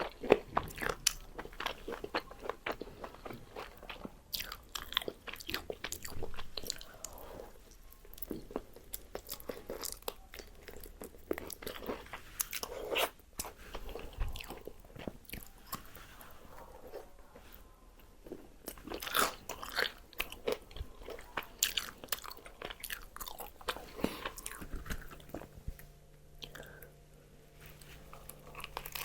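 Close-miked biting and chewing of crispy fried chicken, the crunchy coating crackling in dense runs of sharp crunches, with brief pauses between bites.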